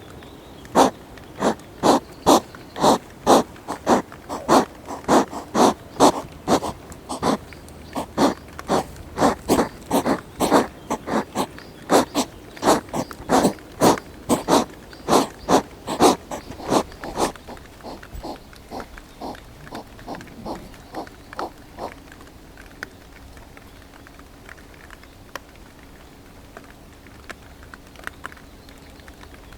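European hedgehog huffing and snorting in a fight, short forceful puffs about two a second. After about seventeen seconds the puffs grow weaker and sparse, with a faint steady hum under them.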